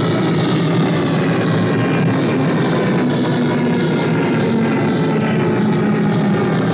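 Synthesized science-fiction sound effect: a loud, steady electronic drone with many tones sliding slowly downward in pitch.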